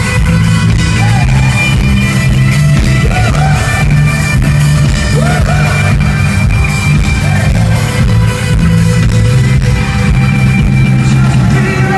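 Loud live rock band playing a song with electric guitars, drums and a heavy bass line under a singing voice, through a concert sound system.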